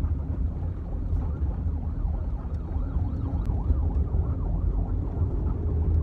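Road noise inside a moving car's cabin, a steady low rumble. A faint, quickly warbling siren rises and falls over it for a few seconds in the middle.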